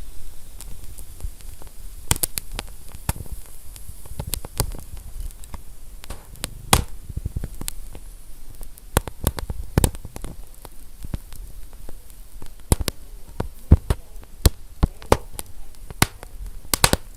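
Wood fire burning in a stove: irregular crackles and sharp pops from the burning wood over a low, steady rumble of the flames, with small clusters of pops around the two-second mark and near the end.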